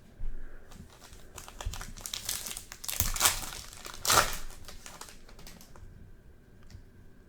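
A 2020 Topps Chrome baseball card pack's wrapper being crinkled and torn open. The crackling builds to two loud surges, about three and about four seconds in.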